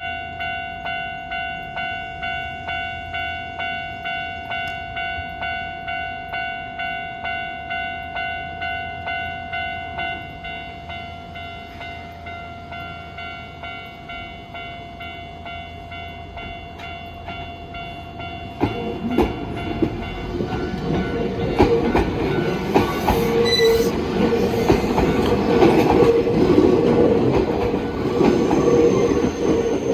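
Japanese level-crossing warning bell ringing about twice a second, turning quieter about ten seconds in. From about two-thirds of the way through, a Nankai 9000 series electric train crosses with rising wheel rumble and a clickety-clack of wheels over rail joints.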